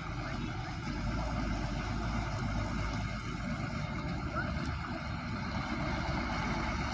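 Hino truck's diesel engine running steadily with a low rumble, and a few short rising chirps about four seconds in.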